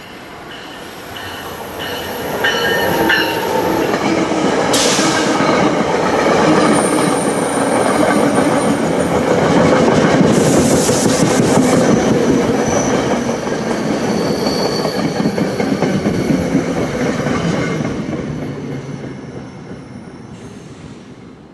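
Passenger train passing at speed: a steady rumble and clatter of wheels on rail that builds to a peak about halfway through and fades away over the last few seconds, with thin high-pitched wheel squealing.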